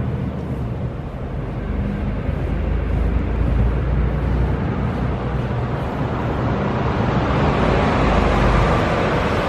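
Steady motor hum with a low rumble and hiss. The hiss grows louder over the last few seconds.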